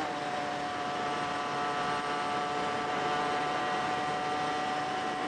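Rieju RS2 Matrix Pro motorbike's engine running at steady revs while cruising, with wind noise over it.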